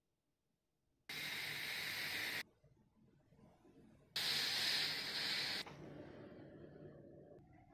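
Electronic vape drawn on in two hissing pulls of about a second and a half each, the second louder, then a softer, fading breath as the vapour is blown out.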